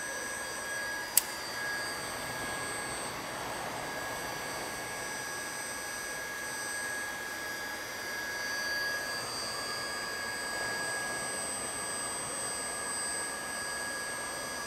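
Electric blower running steadily: a whirring hiss with a few high whine tones over it, and one sharp click about a second in.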